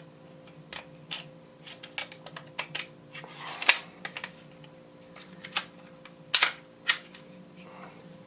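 Irregular metallic clicks and clacks of a Glock 17's slide and a drop-in match-grade barrel being handled and fitted together, with a few sharper clacks about a third of the way in and again past the middle.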